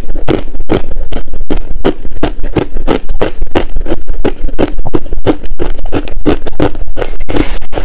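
Close-miked crunching of soft white frost ice being chewed, a steady rhythm of about three crunches a second.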